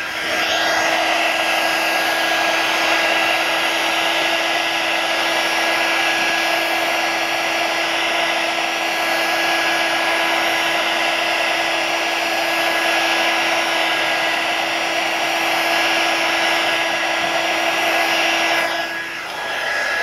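Handheld heat gun blowing steadily, a fan whine over a rush of air, as it heats the screen adhesive to loosen it. It spins up at the start and runs down about a second before the end.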